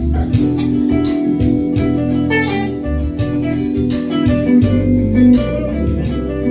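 Informal jam of bass guitar with other instruments: the bass plays a moving line of low notes under held chords and plucked guitar notes.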